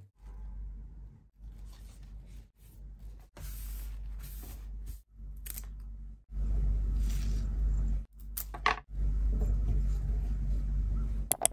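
Scissors snipping through flower stems, with a few sharp cuts (the loudest in the second half), amid rustling of stems and leaves being handled. Underneath is a low steady hum that drops out abruptly several times.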